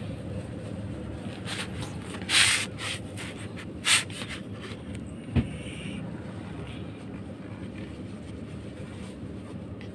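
A tissue rubbing and rustling against a cat's face and fur in two short noisy bursts, then a sharp click, over a steady low background rumble.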